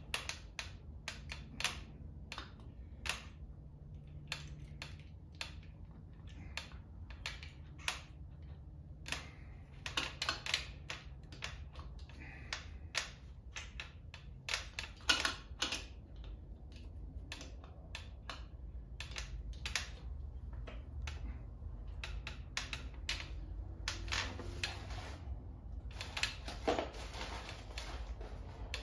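Irregular light metal clicks and clinks of hand work on the front of a 6.1 Hemi V8: the timing chain and sprockets being fitted, with small clusters of quicker clicking now and then.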